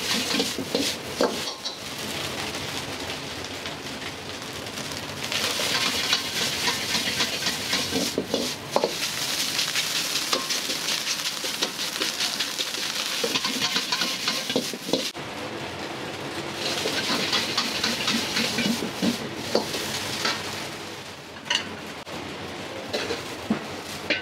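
Food sizzling as it is stir-fried in a hot wok, with a metal ladle scraping and clacking against the pan. The sizzle swells loud about five seconds in and eases off near the end.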